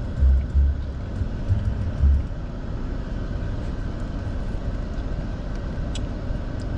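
Steady rumble and hiss of a car's cabin with the engine running. For the first two seconds it carries deep, evenly spaced bass beats from music on the car stereo.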